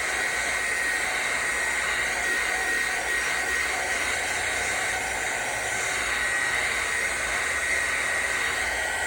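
Hot-air blower running steadily, with a steady whirring rush and a thin whine on top, heating a phone's back to soften the glass adhesive.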